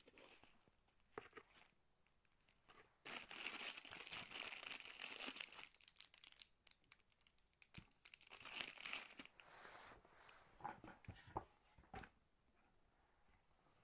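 Packaging being unwrapped and handled: two spells of crinkling and rustling a few seconds each, then a few light clicks and taps.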